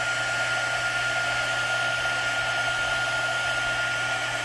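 Stampin' Up! embossing heat tool running, its fan blowing hot air with a steady high whine over the rush of air, melting embossing powder on card stock.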